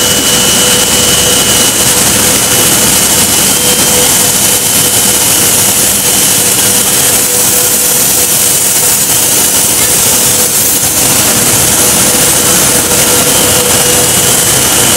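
Banbury mixer compounding line running: loud, steady industrial machine noise with a constant whine on top.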